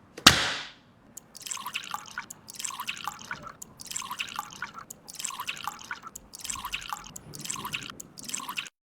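A sharp click just after the start, then wet, sticky dripping and squishing sounds from soft wet food like yogurt. The wet sounds come in short bursts about once a second.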